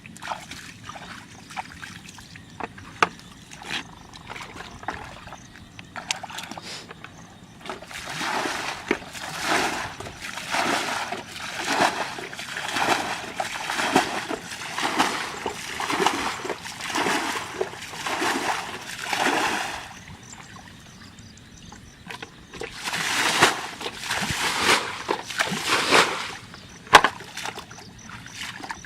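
Water splashing in a steady rhythm, roughly one to two splashes a second, in a long spell and then a shorter one, with scattered knocks between.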